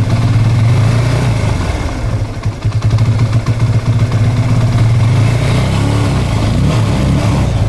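TVS Apache RTR 180's single-cylinder engine held at raised revs, running unevenly and struggling, with a few dips in level: it is misfiring, which the mechanic puts down mostly to the carburettor (a blockage) or else the spark plug.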